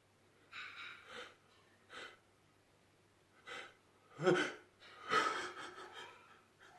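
A man's sneeze building up, with several short gasping in-breaths, then a loud sneeze about four to five seconds in that trails off.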